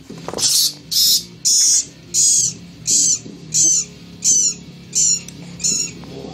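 A brown rat squealing in distress while a ball python constricts it: about ten high squeals, roughly one every two-thirds of a second. Background music plays underneath.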